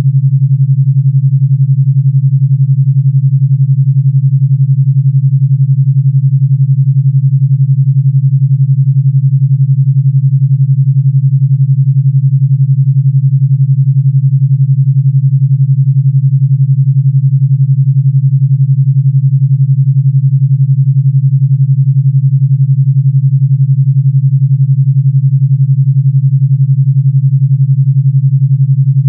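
Steady, loud, low pure tone at 141 Hz, an electronically generated binaural-beat tone carrying an 11 Hz alpha beat, with a fast, even pulse throughout.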